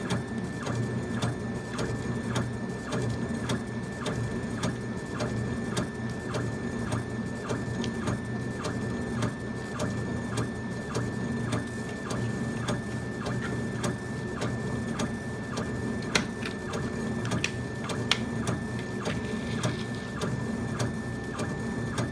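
40-watt laser engraver running a raster engrave, its head sweeping back and forth: a steady motor whine that breaks briefly at each line reversal, about twice a second, over a steady low hum. Two sharp ticks come about two-thirds of the way through.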